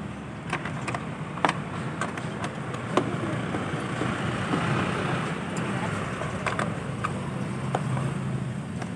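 Open-end wrench clicking and clinking on the hugger's mounting bolt and nut as the bolt is tightened against a counter-held nut, a few sharp clicks spread through it, over a steady background hum of traffic that swells briefly in the middle.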